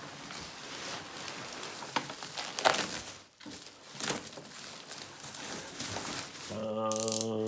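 Packaging crinkling and rustling as a coffee machine is unboxed, with a few sharper rustles and knocks. Near the end a man starts singing a long, held 'dun' note.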